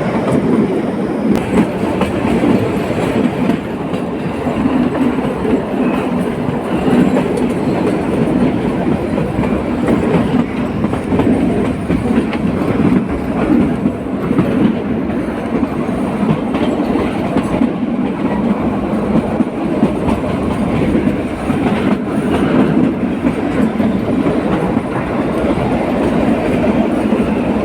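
A train running along its track: a steady rumble and rattle of wheels on rails that keeps on without a break.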